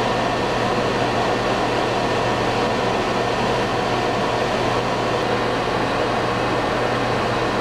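Microwave oven running: a steady whir of its fan over a low electrical hum.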